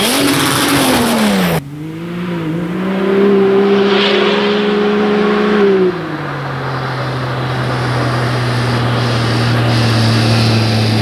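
Off-road race vehicle engines at hard throttle. First a 4x4's engine falls in pitch as it clears a dirt jump. It cuts suddenly to a side-by-side UTV's engine, which rises, holds a steady high note, then drops to a lower steady note about six seconds in.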